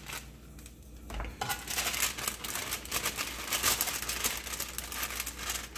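Oiled parchment paper crinkling as it is folded and pressed around a lump of alcapurria batter to shape it, starting about a second in and going on in a dense run of crackles.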